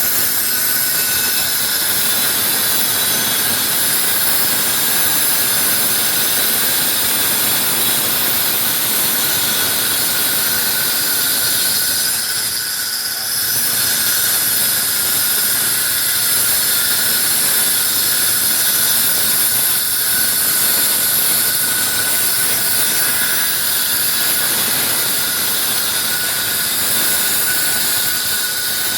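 Angle grinder cutting a slot into a wall: a loud, steady, high-pitched whine that eases briefly about halfway through.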